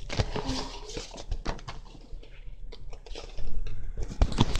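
Rustling and crinkling of a paper poster being handled and unrolled, with scattered taps and clicks, louder past the middle.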